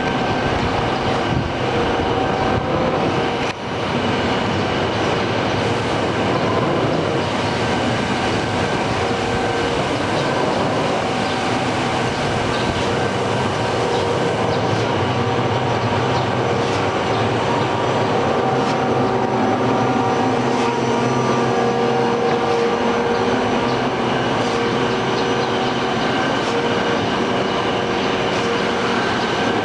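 Equiptop ESG-2460TD surface grinder running: a loud, steady mechanical noise with several steady whining tones and a few clicks in the first few seconds.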